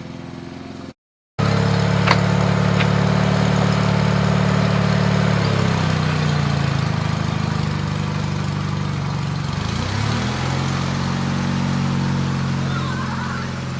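Sears Roper garden tractor engine running steadily under load while pulling a middle buster through a potato row. It starts after a brief gap about a second in, and its pitch dips and shifts briefly about halfway through and again near ten seconds in.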